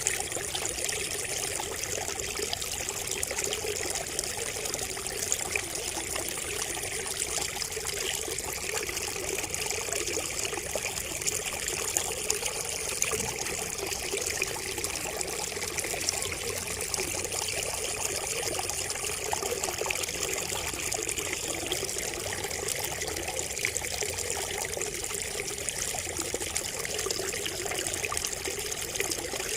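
Water trickling steadily from a bamboo spout, a continuous splashing patter of small drops.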